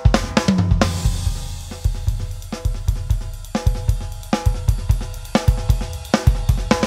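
Yamaha drum kit played with sticks in a steady groove: kick drum, snare, hi-hat and cymbal hits in quick succession.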